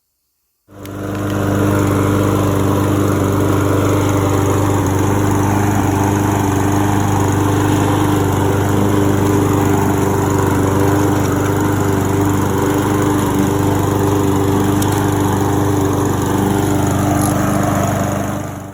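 Husqvarna HU700F walk-behind mower's Honda engine running steadily at constant speed. It starts abruptly about a second in and stops just before the end.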